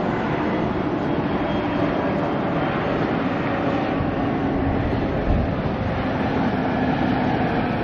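Airbus A320-family jet airliner flying low on approach with its landing gear down, its engines giving a steady rushing noise with a faint whine in it.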